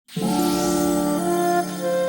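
Background music that starts at once, with long held notes sounding together and shifting pitch about a second in.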